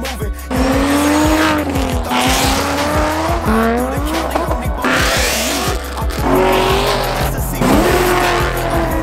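Performance cars accelerating hard one after another, engines revving up and falling back several times, with tire squeal, over a hip-hop track with heavy bass.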